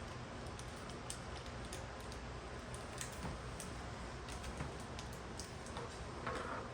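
Scattered light clicks and taps of small plastic laptop parts and connectors being handled, over a steady low background hum, with a brief rustle about six seconds in.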